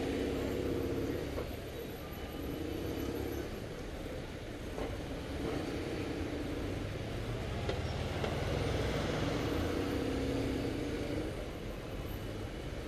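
BMW motorcycle engine running at low speed in city traffic, its humming note coming and going several times over a steady low rumble.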